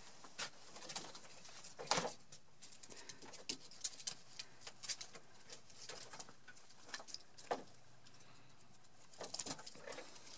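Quiet, irregular rustles, scrapes and soft taps of two male rabbits scuffling close by as one tries to mount the other.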